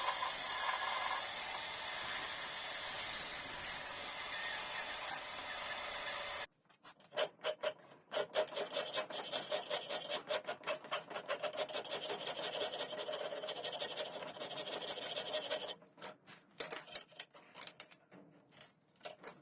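A steady whirring shop noise that stops abruptly about six seconds in, followed by quick rhythmic scraping strokes of hand filing, several a second, which become sparse near the end.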